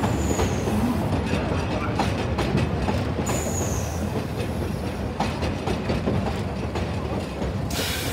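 A train of vintage IRT R33 World's Fair subway cars passing close by on an elevated track, its wheels rumbling and clacking over rail joints. There are two brief high squeals, about half a second in and again about three seconds in. The sound eases off slowly as the cars go by.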